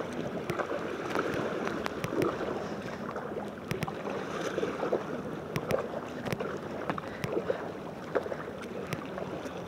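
Kayak being paddled through small wind-driven waves from behind: a steady rush and slosh of water along the hull, with many small sharp clicks and slaps of water on the hull and paddle scattered through.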